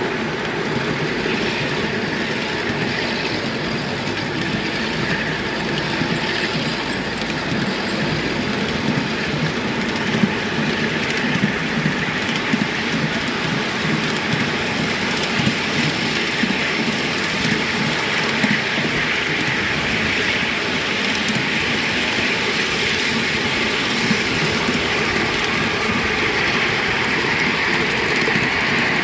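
5-inch gauge miniature train running along the track: a steady rumble of small wheels on the rails, with a few sharp clicks scattered through it.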